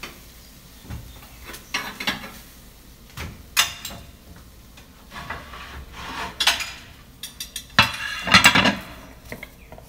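Kitchen utensils and dishes being handled: scattered clinks and knocks about a second apart, with a busier clatter near the end.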